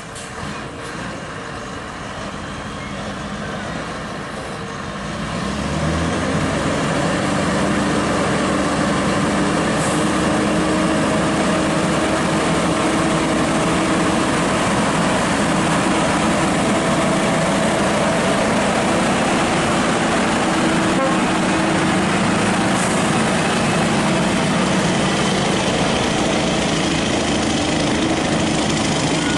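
Scania R580 truck's V8 diesel engine pulling a lowboy trailer loaded with a 60-ton Komatsu D375A bulldozer at low speed. It grows louder about six seconds in as the truck draws alongside, then holds steady as the rig passes close by.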